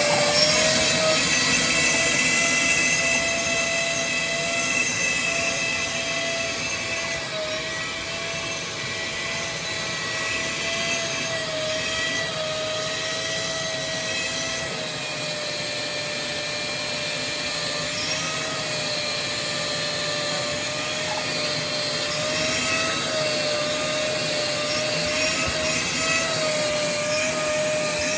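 Carpet-cleaning machine's vacuum motor running with a steady high whine, its pitch wavering slightly.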